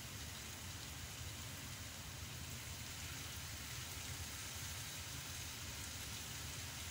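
Wok of seafood and vegetables simmering on a gas stove: a steady hiss of cooking.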